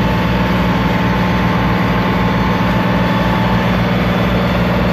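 Sailboat's stern-mounted outboard motor running steadily under way, a constant low drone that does not change in pitch or level.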